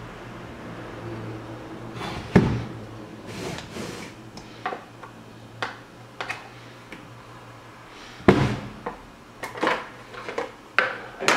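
Clicks, knocks and scrapes of hard plastic as the black protective cover over a gate motor's control board is handled and pulled off. The two loudest knocks come about two seconds in and about eight seconds in, with a run of smaller clicks near the end.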